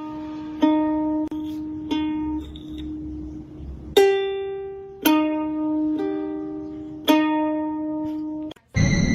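Music: a plucked ukulele melody of single notes, each ringing out and fading, with a short pause in the middle. Just before the end it cuts off abruptly and a loud, steady, high-pitched sound takes over.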